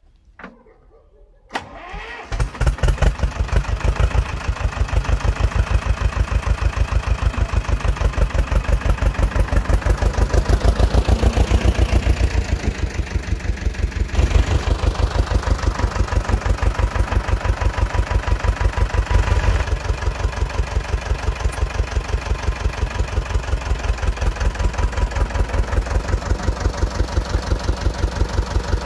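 Ursus C-330 tractor's two-cylinder diesel engine started about two seconds in, then running steadily with an even, fast chugging beat.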